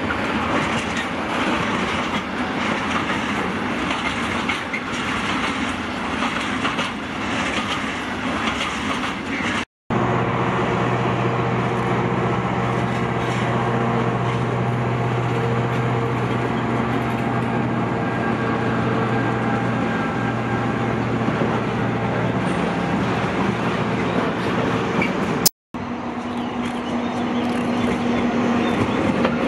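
A Siemens Vectron electric locomotive in BLS Cargo livery rolls past hauling freight wagons, its wheels clattering over the rail joints. After a cut, a DB class 294 diesel shunting locomotive runs with a steady low engine drone. After a second cut near the end, a Flixtrain Taurus electric locomotive passes with a steady hum.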